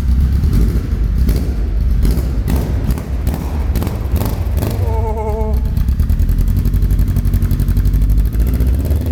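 A Honda's loud engine exhaust running with a deep, heavy rumble. It gives several sharp throttle blips in the first few seconds, then settles into a fast, uneven pulsing.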